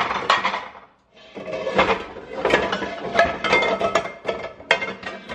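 Dishes and utensils clattering as things are moved around on a kitchen counter: a dense run of clinks and knocks starting about a second in.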